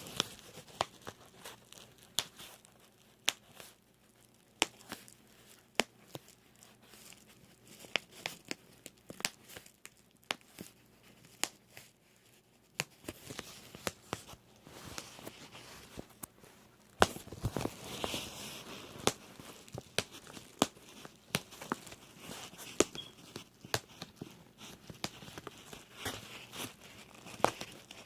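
Bubble wrap popping: irregular sharp pops, often several a second, over the crinkling of the plastic sheet. A busier stretch of crinkling and pops comes a little past halfway.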